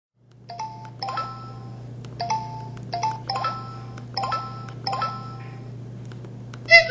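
Samsung SPH-E2309 mobile phone playing a built-in chime sound effect through its speaker: short bell-like notes in twos and threes, repeating about once a second, over a steady low hum. A different sound starts right at the end.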